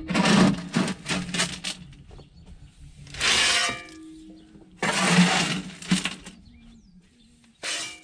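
Crushed gravel being shovelled and tossed around wooden posts: a steel shovel scraping into the stones and rocks clattering down in a series of bursts, two longer scrapes a few seconds in.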